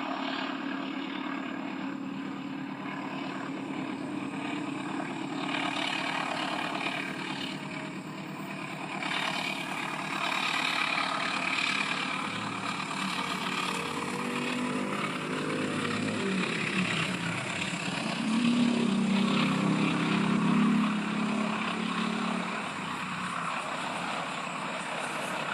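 Train running along the track: a steady rumbling clatter, with a low engine hum that grows louder past the middle and eases off near the end.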